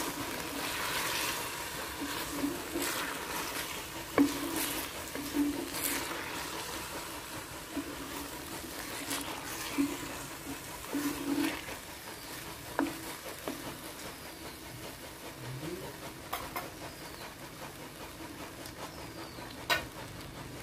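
Wooden spoon stirring chicken and tomatoes in a clay pot, with irregular scrapes and knocks against the pot's sides over a steady sizzle of frying.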